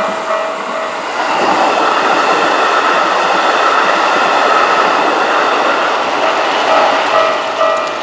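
Keikyu Main Line electric train passing a level crossing at high speed: a dense rushing of wheels on rail swells about a second in and fades near the end. The crossing's warning bell rings about twice a second, buried under the train and heard again as it fades.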